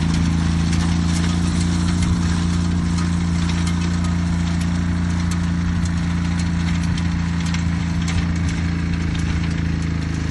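An engine running at a steady speed with no revving, with scattered light clicks and ticks over it.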